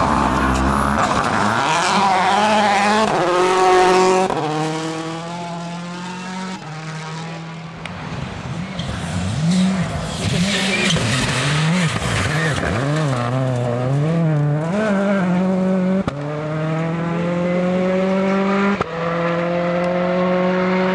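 2.0-litre turbocharged four-cylinder World Rally Car engines at full throttle on gravel: revs climb hard with sharp upshifts, about four in all. In the middle the revs swing up and down through a corner.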